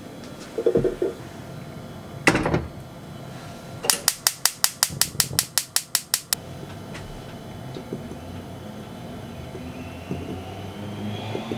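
Ceramic donabe clay pot clinking as it is lifted, then set down on the gas stove's grate with one sharp knock. A couple of seconds later the gas stove's igniter clicks rapidly, about six clicks a second for some two seconds, as the burner is lit.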